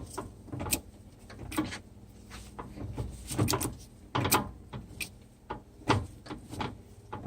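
Ford 8.8 TracLock limited-slip differential turned over by hand, its spider gears and clutch pack clunking about once a second. These are the clicks the owner traces to worn spider gears with play in them, and to the clutch ears and S-spring hitting the top and bottom.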